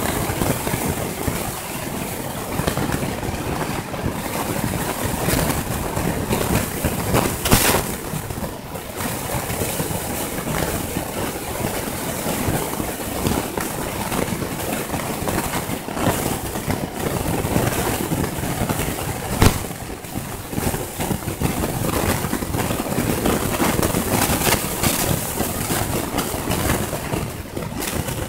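Road traffic noise from cars passing, a continuous rushing with a couple of sharp knocks, one about a quarter of the way in and one about two-thirds through.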